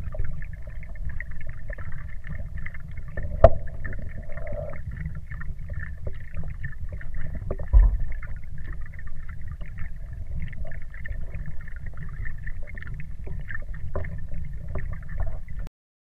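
Underwater pond ambience picked up by a Sennheiser MKE 2 Elements waterproof microphone submerged on a GoPro: a steady low rumble with muffled water noise. A sharp click comes about three and a half seconds in and a low thump near eight seconds, and the sound cuts off suddenly just before the end.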